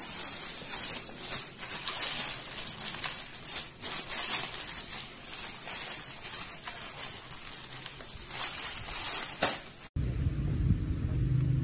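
Plastic courier mailer bag crinkling and rustling as it is handled and torn open: an irregular crackly noise. About ten seconds in it cuts off abruptly to a steady low rumble.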